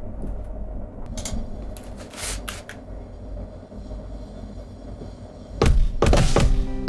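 Low background hum with a few faint clicks. About five and a half seconds in, electronic music from Maschine 2 starts loudly: punchy Polyplex drum hits over held synth notes, as the drum track is recorded.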